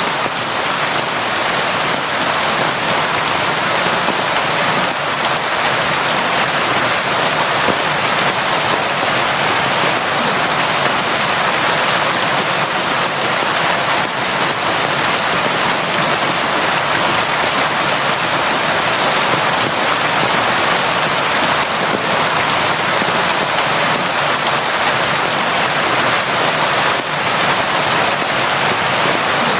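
Steady, constant rainfall: a dense, even hiss of rain with no let-up.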